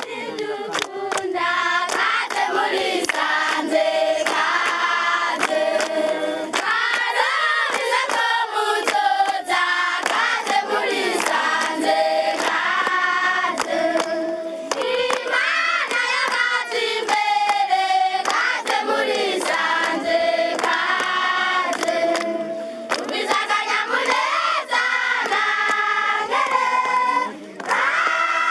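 A group of children singing together, with handclaps through the song. The singing dips briefly near the end.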